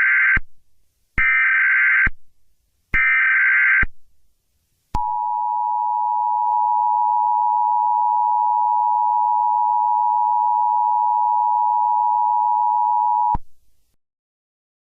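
Emergency Alert System alert tones. First comes the end of one burst of the SAME data header's digital tones and two more, about a second apart. Then the two-tone attention signal sounds as one steady tone for about eight seconds and cuts off suddenly.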